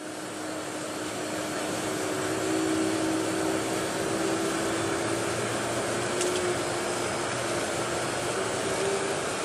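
Steady airliner cabin noise on the taxiway: jet engines at idle thrust under a constant air-conditioning hiss. A faint engine whine edges up slightly in pitch about two seconds in.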